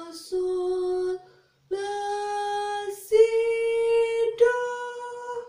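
A young woman singing a solfège practice scale unaccompanied: four long held notes, each a step higher in pitch, with a short break after the first.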